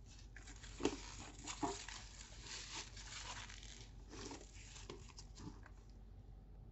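Crinkly white wrapping on a new handbag's handles rustling and crumpling as the bag is handled, with two sharp knocks about one and one and a half seconds in.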